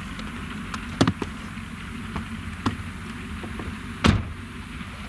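ROPA Maus sugar-beet cleaner-loader running, a steady machine hum under a rattling hiss of beets moving through the loader. A few sharp knocks break in, the loudest about four seconds in.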